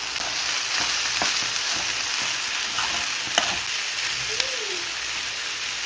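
Minced chicken and frozen mixed vegetables sizzling in a hot frying pan with a steady hiss, as the vegetables are stirred in. A spoon clicks against the pan a few times, most sharply a little after three seconds and again past four seconds.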